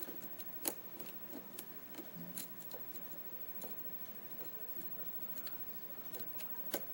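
Light metallic clicks and scrapes of a hook pick working the pins of a Schlage pin-tumbler lock under tension, with a few sharper clicks, the loudest at under a second in and near the end.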